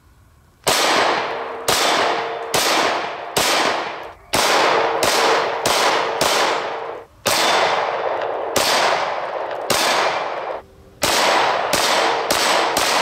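9mm Glock pistol firing Winchester USA Ready +P 124-grain hollow points at a steel silhouette target: about fifteen shots in quick strings, each hit setting the steel plate ringing as the report dies away.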